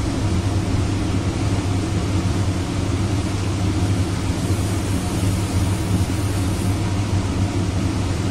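Laminar flow hood blower running steadily: an even hum with air noise that does not change.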